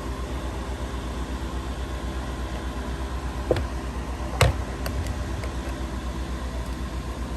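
Steady low electrical hum with a fast flutter, broken by two short clicks about three and a half and four and a half seconds in, the second one louder.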